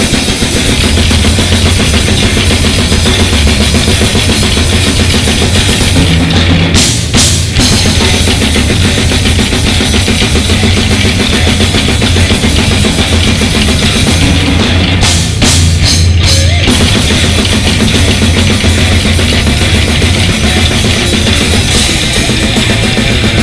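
Extreme metal band playing live: heavily distorted guitars and bass over fast, hard-hit drums and cymbals, loud throughout, with two brief breaks about seven and fifteen seconds in.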